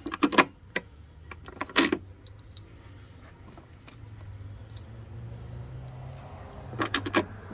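Small metal parts and hand tools clinking and rattling in short bursts: a cluster near the start, another about two seconds in, and a quick run of clicks near the end.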